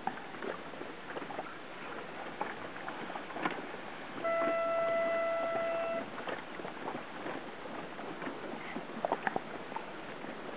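A horn, the race signal at a dinghy race, sounds once as a single steady note for just under two seconds, about four seconds in. Around it is a steady hiss of wind and water with small splashes and knocks.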